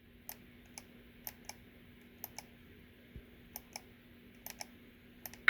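Faint clicking, about a dozen sharp clicks, several in quick pairs, over a low steady hum and hiss from the test speaker: computer mouse clicks selecting sound functions in the decoder programming software.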